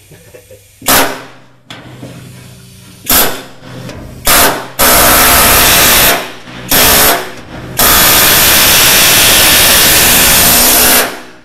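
Pneumatic air chisel hammering through the sheet-steel pan under a car's gas tank. Three short bursts, then longer runs, the last about three seconds. Very loud, to the point of distorting the recording.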